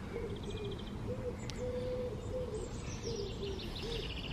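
A pigeon cooing over and over in low, hooting phrases, with small songbirds chirping higher up: a short rapid trill about half a second in and more chirping near the end.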